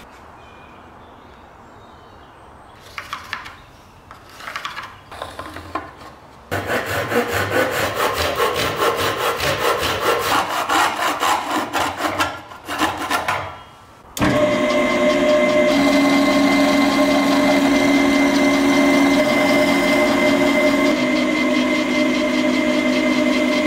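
A few strokes of a chisel paring wood, then a hand saw cutting through a wooden scythe handle with fast, even strokes. About 14 seconds in, a drill press motor starts and runs steadily with a hum while the bit drills into a wooden board.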